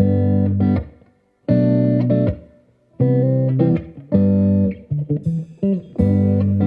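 Background music led by a plucked guitar, playing short phrases of notes with brief pauses between them.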